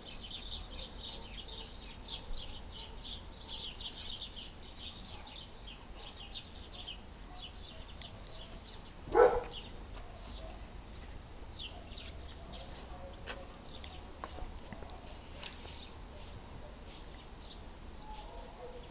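Small birds chirping in the background, with scattered faint sharp clicks that the uploader presents as the wing sound of a peacock butterfly. One short, much louder call stands out about nine seconds in.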